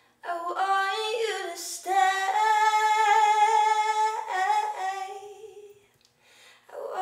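A young woman singing solo and unaccompanied. She holds one long note in the middle, pauses briefly near the end, then starts singing again.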